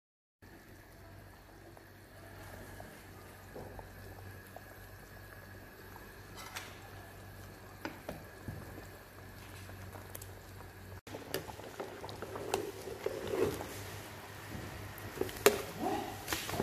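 Lamb simmering in jameed yogurt sauce for mansaf, the sauce bubbling steadily in a pan over a faint steady hum. After a cut about eleven seconds in, the bubbling is louder, with a few sharp clicks and knocks of spoons against the pan near the end.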